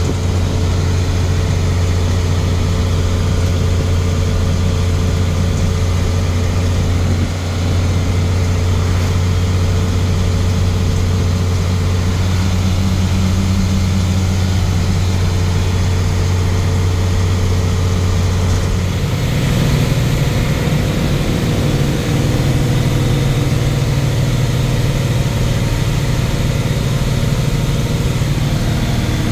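Vehicle engine running steadily while driving, hauling a loaded trailer, with a deep, even hum; about two-thirds of the way through the engine note steps up higher and stays there.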